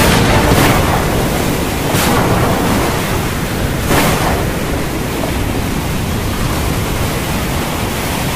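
Steady rushing noise of a stormy sea and wind, with brief swells of hiss about two and four seconds in.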